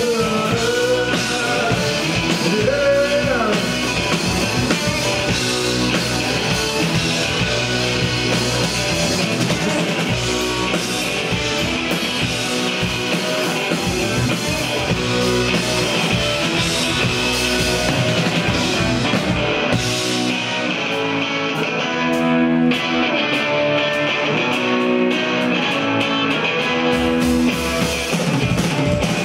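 Live rock band playing: distorted electric guitars over a drum kit, with a sung line in the first few seconds. About two-thirds of the way in the music thins out for about seven seconds as its deep low end and bright top fall away, then the full band comes back in.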